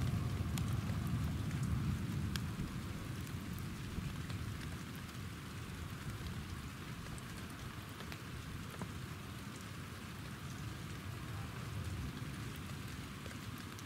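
Steady rain, with scattered drops ticking close by, over a low rumble of distant thunder that is strongest in the first few seconds and then fades.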